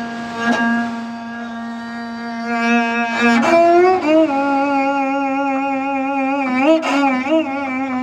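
Sanjo ajaeng, a bowed Korean zither, playing solo sanjo: a long held low note for about three seconds, then a run of notes shaken with wide, deep vibrato.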